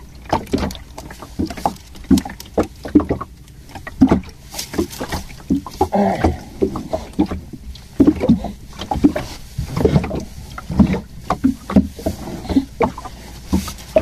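Many irregular knocks, thumps and slaps aboard a small fishing boat, over a low steady rumble of water and wind.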